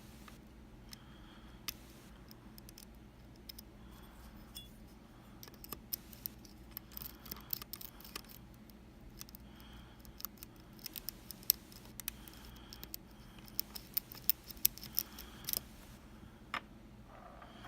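Small irregular metallic clicks and ticks of lock picking tools working the pins of a Kaba Quattro S dimple lock, coming thicker through the middle of the stretch.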